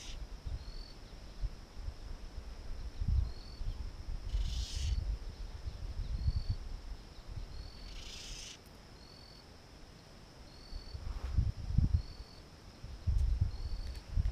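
Insects buzzing steadily with a short high chirp repeating about once a second, over uneven low rumbling on the microphone. Three brief hissing bursts stand out, at the start, about four seconds in and about eight seconds in.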